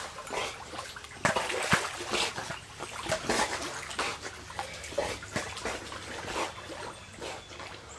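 Water splashing in a swimming pool as a Labrador retriever swims with a ball in its mouth and a man swims near it: irregular splashes, loudest about a second and a half in.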